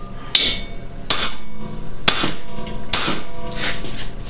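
A hand sledge hammer striking a steel punch to drive out a bolt seized in an aluminium control arm: about five sharp metallic blows roughly a second apart, each ringing briefly.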